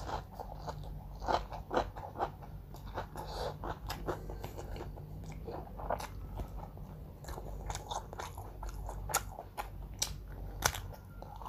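Close-up chewing and biting of crisp food, with many irregular crunches, a few of them louder than the rest.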